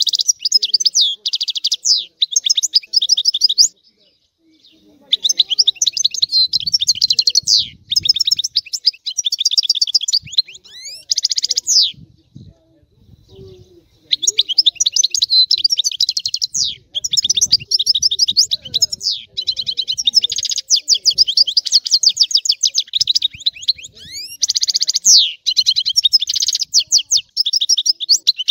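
European goldfinch singing: long runs of fast twittering trills with quick sliding notes, broken by two short pauses, about four seconds in and about twelve seconds in.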